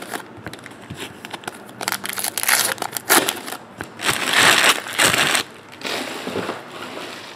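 Trading-card pack wrappers crinkling and tearing as packs are opened and handled, in irregular rustles with the loudest spell a little past the middle.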